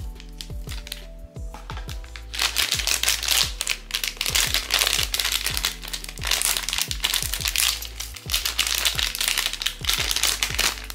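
Packaging crinkling and rustling as a POP MART blind box figure is unwrapped, starting about two seconds in, over background music with a steady beat.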